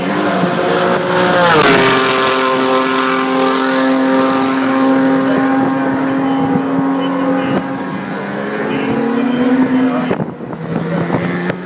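Race car engine passing on the circuit. Its note drops in pitch as it goes by about two seconds in, then holds steady for several seconds, rises slightly, and falls away suddenly about ten seconds in.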